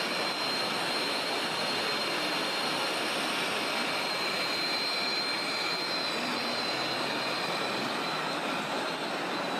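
A steady high-pitched whine from a small electric motor, running without a break over a dense, even background noise.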